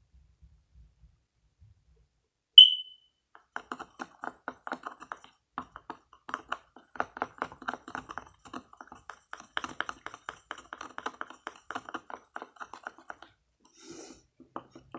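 A mixing tool quickly clicking and tapping against a container as a lotion-and-water slime mixture is stirred, with about ten seconds of rapid irregular taps. Just before the stirring starts comes a single short high ping, the loudest sound.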